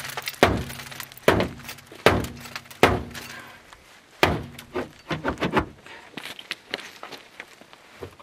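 Boker Vox T-Hawk tomahawk hacking into the sheet-metal door of an old Subaru: four heavy strikes a little under a second apart, each leaving a short low ring from the panel. A fifth strike comes after a pause, then a run of lighter knocks and taps.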